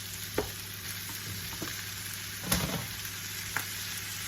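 Beef mince frying in a pan with cabbage and onions: a steady sizzle, with a spoon knocking and scraping against the pan a few times, loudest about two and a half seconds in.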